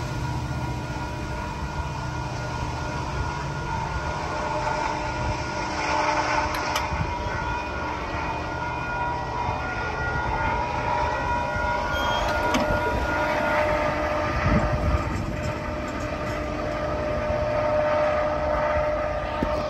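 Loaded Union Pacific coal train passing a grade crossing: the aluminum coal cars' wheels rumble steadily over the rails, with a sustained high-pitched ringing of steel wheels on rail above the rumble.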